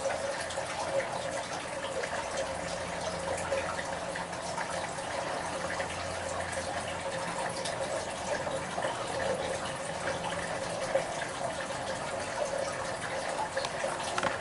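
Steady rushing of running water throughout, with a faint low hum that comes in for a few seconds in the middle.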